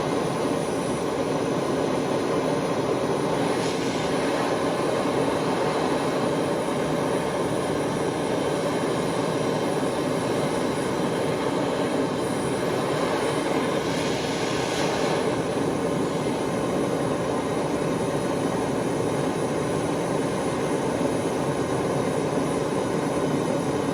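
Handheld gas torch flame running with a steady rushing roar as it heats thin 16-gauge sheet steel toward red hot.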